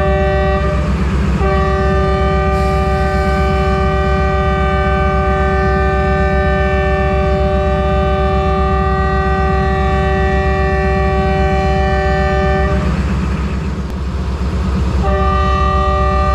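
Diesel locomotive's multi-tone air horn: a short blast, then one long blast of about eleven seconds, then another blast starting near the end. Under it the locomotive's diesel engine runs with a steady, pulsing rumble.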